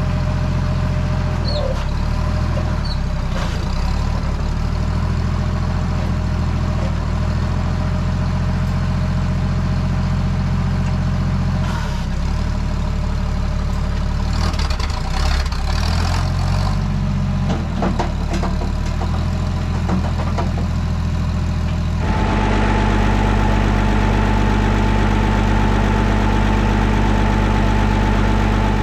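Lull loader's engine idling while it warms up after a boosted start. A few knocks come through about halfway. About 22 seconds in, the engine note steps up louder and changes pitch.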